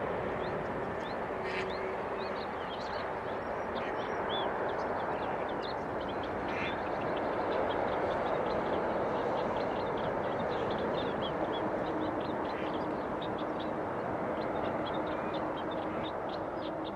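Steady distant jet rumble from a Boeing 747-400 rolling out after landing, with birds chirping rapid short high notes over it, thickest in the second half.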